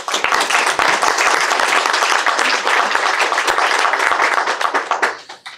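Audience applauding, a dense steady clapping that dies away about five seconds in.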